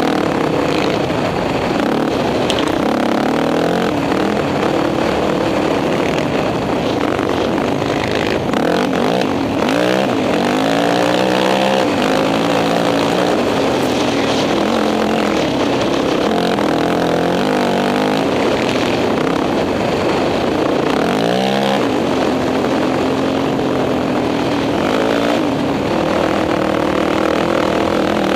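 Sport quad's single-cylinder engine running hard on sand dunes, its note climbing and dropping as the throttle is worked, with several quick swoops up and down through the ride.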